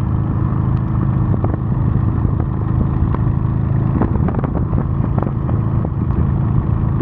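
Honda Steed V-twin motorcycle engine running steadily while riding, with road and wind noise and a scattering of small knocks.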